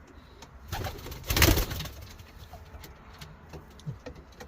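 Racing pigeons cooing in a loft, with a loud rustling burst about a second and a half in.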